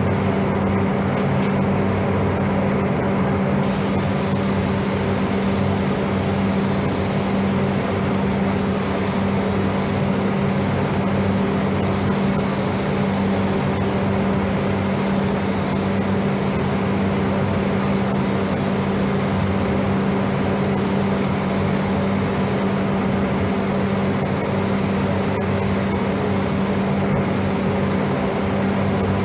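Paint spray booth's ventilation fans running: a steady, loud drone of rushing air with a constant low hum. The higher hiss thickens about three and a half seconds in.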